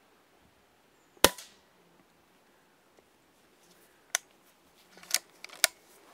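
Daystate Red Wolf pre-charged pneumatic air rifle firing a pellet: one sharp crack about a second in. Near the end come a click and two more sharp cracks as the multi-shot rifle is reloaded and fired again for a follow-up shot.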